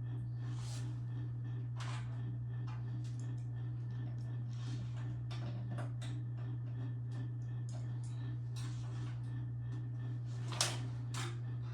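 Scattered rustles and light clicks of hands handling computer cables and parts, over a steady low hum. The sharpest click comes near the end.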